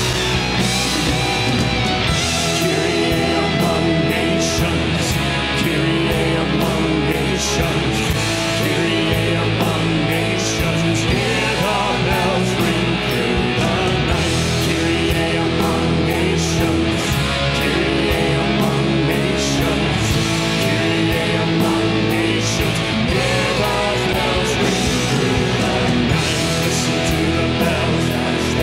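Live rock band in full swing: electric guitar over bass guitar, keyboards and drums, with a steady drum beat.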